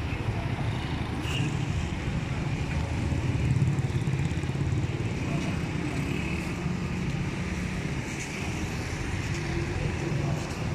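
Road traffic: engines and tyres of passing cars making a steady low rumble.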